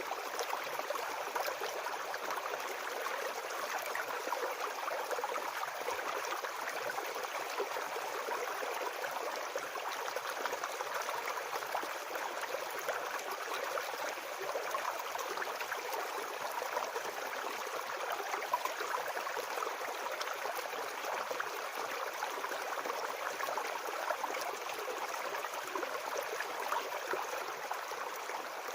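A small forest brook babbling: shallow water running steadily over stones, an even splashing and gurgling.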